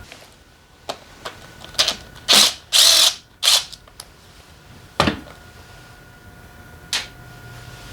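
Tools undoing bolts on a motorcycle engine being taken apart. Three short, loud bursts of a ratcheting or spinning tool come about two to three and a half seconds in, with single sharp metal clinks before and after.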